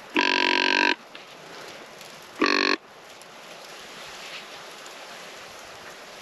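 A hand-held deer call blown twice to draw in a rutting buck: a longer steady buzzy call of nearly a second, then a shorter one about two and a half seconds in.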